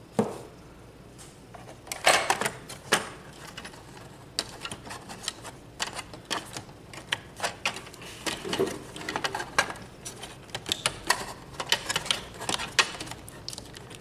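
Irregular clicks and knocks of plastic and sheet-metal parts being handled inside an open HP ProLiant DL360 G7 server chassis, as the cache battery and its cable are unclipped and the plastic air shroud is worked loose. The loudest knocks come about two to three seconds in.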